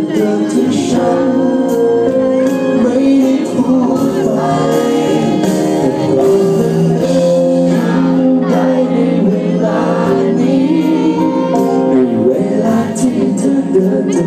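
Live band playing a Thai pop song while a male singer sings the melody into a microphone.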